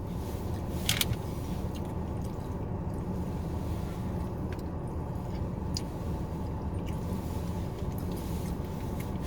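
Steady low hum of a parked car's cabin, with a few brief clicks.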